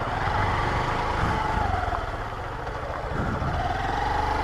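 Motorcycle engine running as the bike rides off on a dirt road, its pitch sagging a little midway and rising again near the end.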